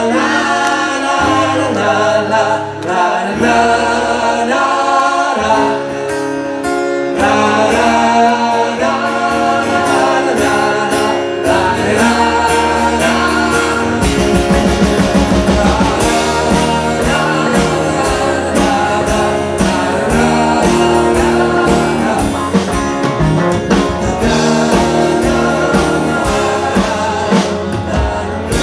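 A live rock band playing a song with sung vocals, acoustic guitar and electric guitars through a loud PA.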